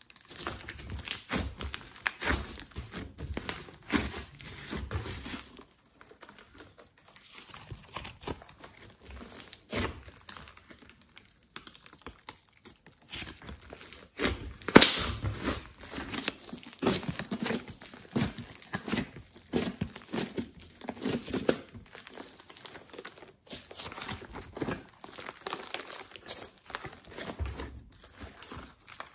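Glossy slime mixed with clay and glitter being squeezed, stretched and pressed by hand, giving irregular sticky crackles and clicks. The loudest click comes about halfway through.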